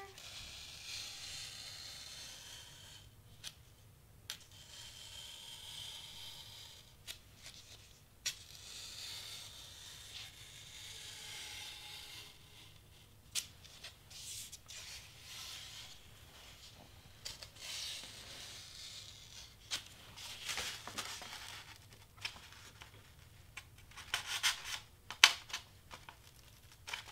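Excel Blade Fit Grip craft knife cutting through white cardstock on a cutting mat: repeated scratchy strokes lasting a second or two, with scattered sharp taps and a cluster of louder taps near the end.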